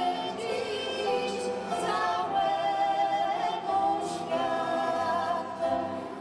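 Small mixed vocal group, women's voices most prominent, singing a Polish Christmas carol (kolęda) together.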